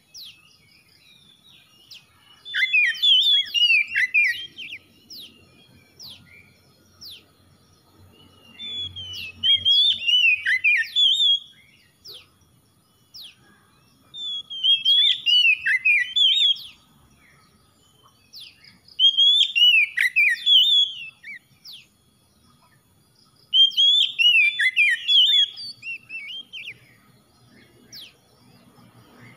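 Oriental magpie-robin (kacer) singing: about five short bursts of rapid notes that sweep up and down in pitch. Each burst lasts two to three seconds, with pauses of a few seconds between them.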